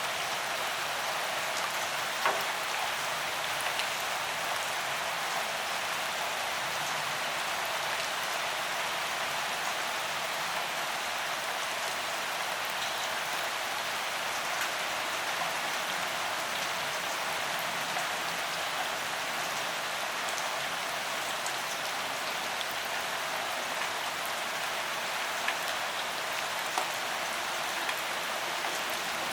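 Steady rain falling, an even hiss with scattered ticks of individual drops, one sharper drop about two seconds in and a couple more near the end.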